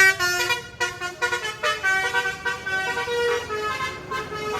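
A bus's telolet musical horn playing a tune, with short notes in quick succession at first, then longer held notes.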